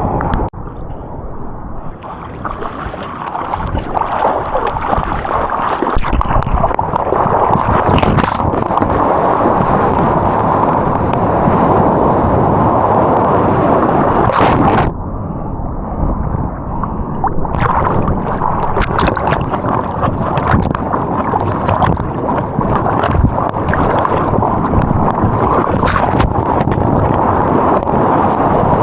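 Seawater rushing and sloshing close to the microphone, mixed with wind noise, with scattered splashes and knocks; it dips briefly about halfway through.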